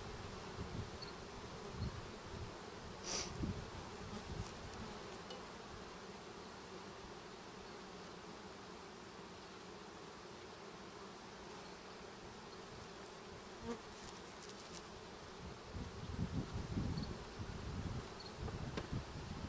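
Many honey bees buzzing in a steady hum as they move from the installed packages into a new hive. A sharp click comes about three seconds in, and low rumbles near the end.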